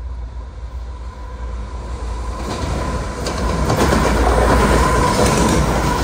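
Three Canadian Pacific GE diesel-electric locomotives running light, with no cars, approach at speed and pass close by. Their rumble builds from about halfway through, and the wheels click over the rail joints as they go by.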